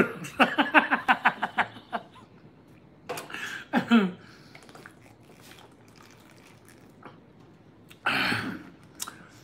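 A man's short pulsing laugh, then quiet swallowing from a plastic water bottle, then a little burp about eight seconds in.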